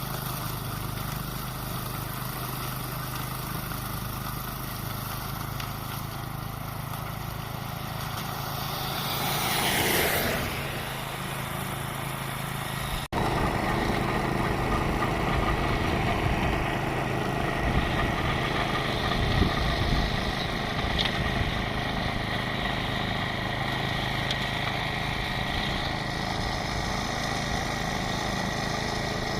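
Toro 828 snowblower engine running steadily, with a rushing swell that rises and falls about ten seconds in; the sound cuts out for an instant partway through and comes back a little louder.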